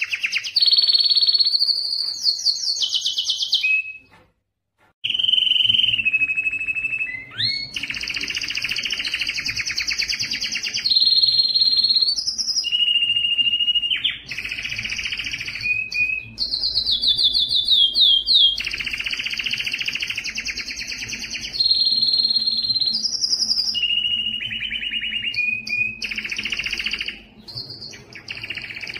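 Male domestic canary singing an excited breeding-season song: a long string of fast trills and rolls, each a rapid run of repeated notes, some held at one pitch and some sliding up or down. The song cuts out for about a second roughly four seconds in, then carries on.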